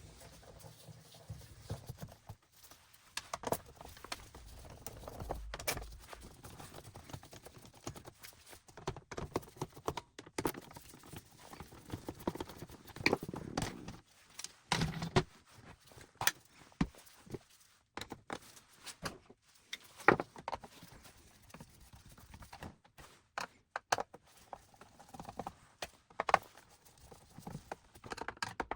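Plastic housing parts and tools handled while taking apart a Roomba i7 robot vacuum: irregular clicks, taps and knocks, some close together.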